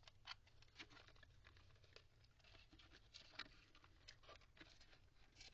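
Faint rustling and scratching of a cardboard box tray and its paper ties being untied by hand, with scattered light clicks.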